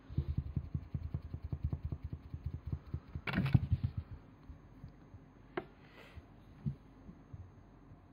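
Fingers scratching and tapping rapidly on carpet close to the microphone, then a louder rustling thump a little past three seconds as a cat pounces at the hand, followed by a few scattered soft taps.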